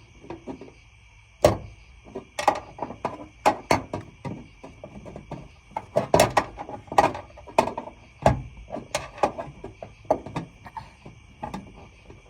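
Irregular clanks and knocks of bolts and a plate being worked and forced loose by hand, with a faint steady high-pitched tone underneath.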